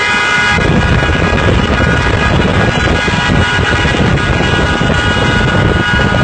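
Car horn held down in one long unbroken blast, over the engine and road rumble of a moving car.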